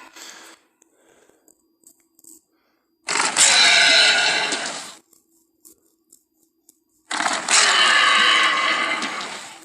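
Two long Tyrannosaurus rex roar sound effects from the film, each lasting about two seconds and fading out at its end, with the tail of an earlier roar at the very start.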